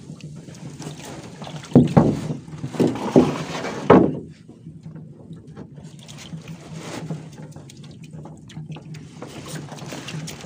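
Water and handling noise around a small boat: three loud thumps between about two and four seconds in, then quieter scattered knocks and rustling over a low steady hum.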